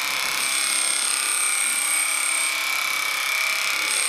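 Electric horse clippers running steadily as they cut through a horse's coat: a constant buzz with a high whine that drops out and comes back a couple of times.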